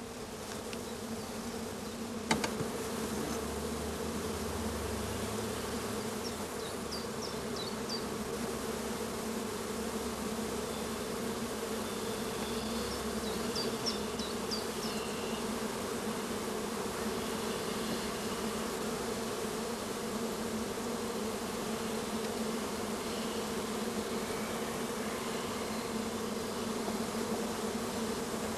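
Honeybee colony humming steadily, a dense drone of many wingbeats. A sharp click about two seconds in and a few faint high chirps.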